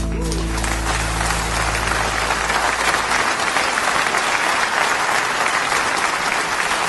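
Audience applauding at the end of a song, while the accompaniment's last low note dies away in the first three seconds.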